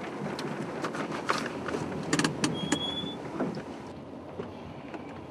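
A car pulling over and stopping, heard from inside: steady engine and road rumble with a run of sharp clicks and clunks, loudest about two seconds in, and a short high beep just before three seconds. About four seconds in it gives way to a quieter outdoor hush.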